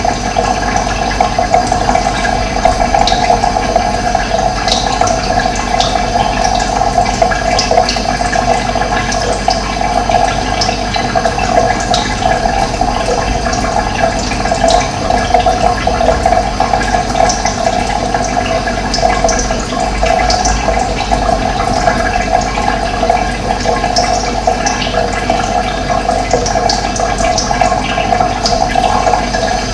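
Running water flowing steadily, with short bird chirps scattered over it.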